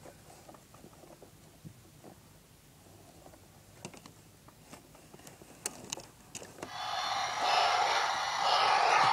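Faint clicks and taps of a plastic toy stage and doll being handled, with a few sharper clicks in the middle. About two-thirds of the way in, a much louder, steady sound sets in and continues.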